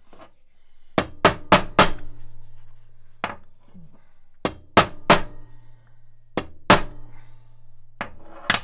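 Hammer blows on a steel pin punch, driving at a small stuck pin in the steel body of a Wilton bullet vise: sharp metallic strikes in clusters, four quick blows about a second in, then single strikes and groups of two or three. The pin is not coming out.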